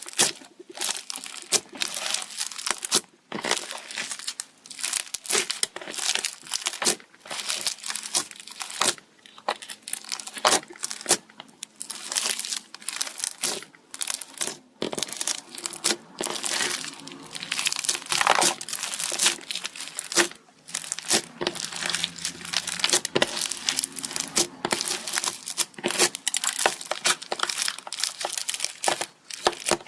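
Slime being squeezed and worked by hand, giving dense, irregular crackling and popping throughout, with a few brief pauses.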